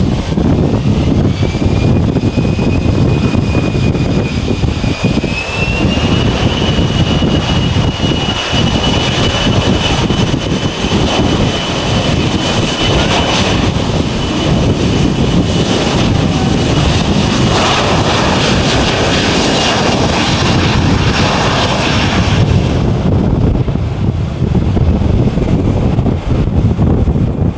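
Jet airliner's engines running loud: a heavy rumble under a high turbine whine that rises in pitch twice in the first few seconds, holds steady, then fades out near the end.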